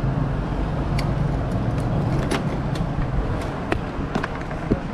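Motorcycle running, a steady low engine hum that drops away about three seconds in, followed by a few short sharp clicks.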